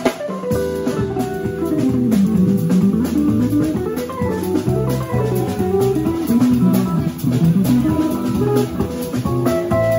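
Live instrumental jazz from a small band: guitars carry a running melody that dips down and climbs back up, over electric bass, keyboard and a drum kit.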